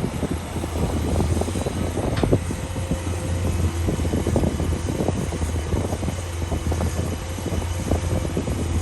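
Heavy diesel construction machinery running steadily, with frequent irregular knocks and clatter.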